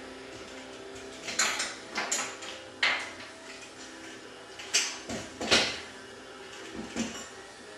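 Steel pieces clinking and clattering on a workbench as they are handled: a handful of sharp metallic knocks and rattles at irregular intervals, the loudest about five and a half seconds in.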